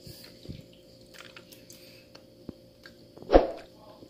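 Hot oil in an empty frying pan on a gas stove, faintly sizzling with a steady soft hiss. A few light clicks and one sharp knock come about three and a half seconds in.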